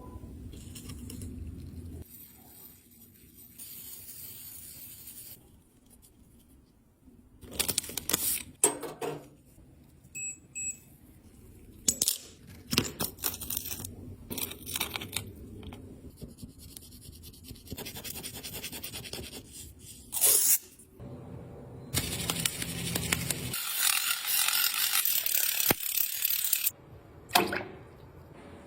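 Small hard objects handled at close range: scattered sharp clicks and knocks with quieter scraping between, and a longer stretch of steady hissy scraping near the end.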